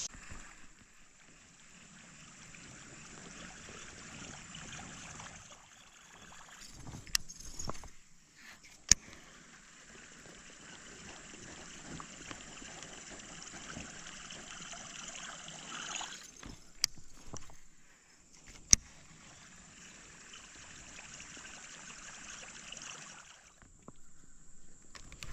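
Steady rush of river water with a high, even hiss over it, broken by about four sharp clicks or knocks.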